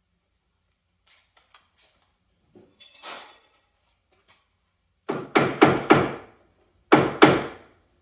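Sharp knocks on the cedar-strip kayak hull: four quick strikes, then two more about a second later, after a few faint clicks and a rustle.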